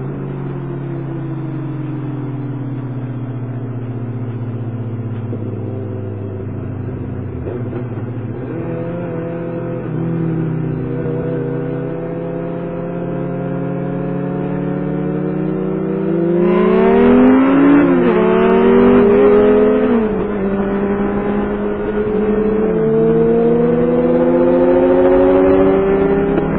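Kawasaki Concours 14's inline-four engine heard from the rider's helmet, its pitch sinking slowly as the bike eases off over the first several seconds, then holding steady. About two-thirds of the way through it opens up, louder and climbing in pitch with a few brief dips, over a rush of noise.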